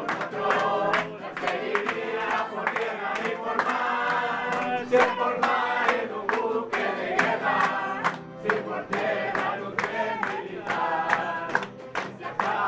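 Live piano accordion and acoustic guitar playing a dance tune, with a group of voices singing along over it. A quick, steady beat of sharp strokes runs through the music.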